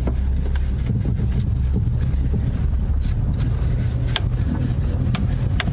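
A car driving slowly over a rough, potholed dirt road, heard from inside the cabin: a steady low engine and road rumble, with a few sharp clicks and knocks, the clearest about four seconds in and several more near the end.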